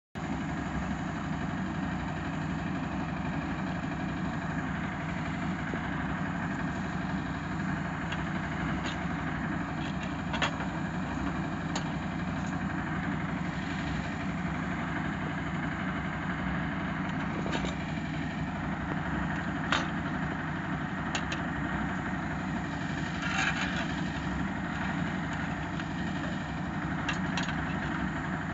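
An engine running steadily in the background, with a few light metallic clinks from a steel rebar being bent into a column tie with a hand bending key against nails set in a wooden plank.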